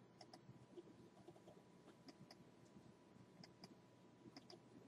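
Faint, irregular computer mouse clicks, several in quick pairs, as line segments are clicked into place in a drawing program; otherwise near silence.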